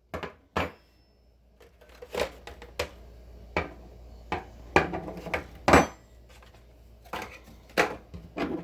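Chrome-plated steel wrenches clinking and clanking against each other as they are handled and laid side by side, a dozen or so separate metal knocks with short ringing, the loudest two just before halfway through.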